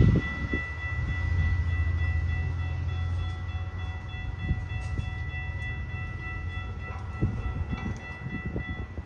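GO Transit diesel locomotive running under power as it pulls away, its heavy engine rumble loudest at the start and fading. Steady high ringing tones sound over it and stop shortly before the end, with a few short knocks near the end.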